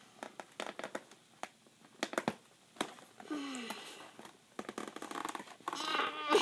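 Plastic toy packaging and cardboard being handled: clicks, rustles and crinkles as a T-Rex toy is worked out of its box. A short falling pitched sound comes about halfway through, and a louder pitched sound near the end.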